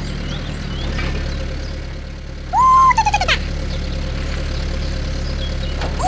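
Steady low engine idling drone for the toy excavator. About two and a half seconds in, a loud, short, high squeaky call rises and then falls in pitch.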